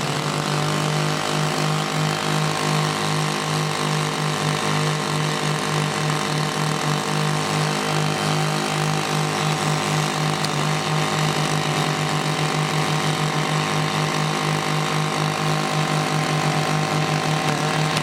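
Portable diamond core drilling rig running, its motor throbbing in a steady rhythm that quickens from about halfway through.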